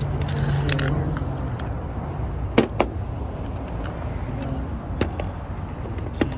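Sharp metallic clicks of hand tools against the engine's valvetrain as the rocker arm is worked off: a close pair about two and a half seconds in, another around five seconds and one near the end, over a steady low hum.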